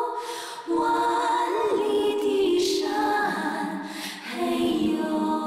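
Music: a female singing voice with choir-like vocals, singing slow, long held notes.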